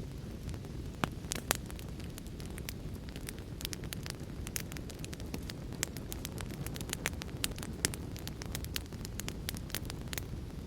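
Wood fire crackling in a fireplace, with frequent sharp, irregular pops over a steady low rumbling noise.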